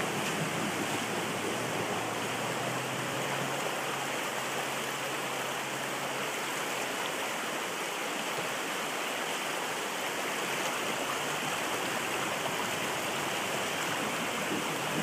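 Wellington River flowing in a steady rushing stream. A faint low engine hum sits under the water for the first half and fades away about seven seconds in.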